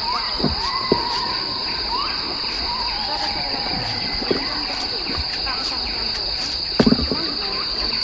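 Tropical forest ambience: insects keep up a steady high-pitched drone, with whistled calls rising and holding around it. A short cluster of louder calls comes about seven seconds in.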